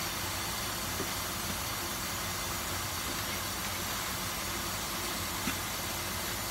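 Chicken and diced vegetables sizzling and steaming in a sauté pan, a steady hiss, with a couple of light clicks of the spatula against the pan.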